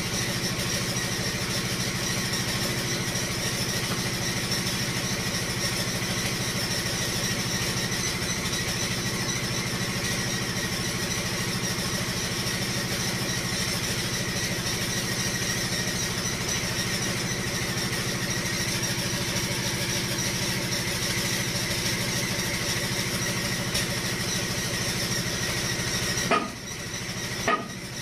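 Foton dump truck's diesel engine running steadily, with a thin high whine above it. Near the end the running sound dips and a few sharp metallic clicks stand out.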